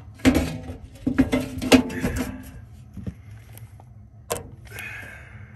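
Handling knocks and rattles: a quick cluster of knocks in the first two seconds, then one sharp knock a little past four seconds, over a low steady hum.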